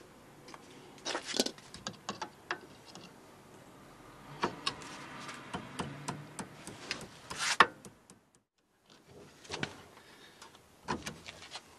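Irregular light metallic clicks and clinks of hand tools and a removed split pin being handled at a car's front wheel hub. The loudest clink comes about seven and a half seconds in, followed by a brief near-silent gap and then more clicks.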